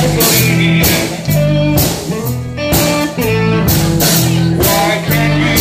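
Live blues band playing: a repeating guitar riff over a drum kit with steady cymbal strokes.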